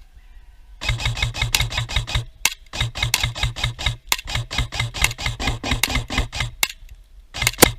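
Airsoft electric gun firing on full auto close by, a rapid, even rattle of shots at about nine a second. It starts about a second in, runs in long bursts with brief breaks, and ends with a few shorter bursts near the end.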